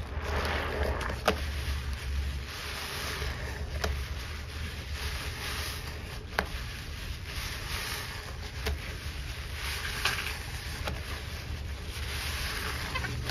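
Thick soapy foam squelching and crackling as a wet sponge is squeezed and kneaded in gloved hands, with a few sharp wet pops along the way.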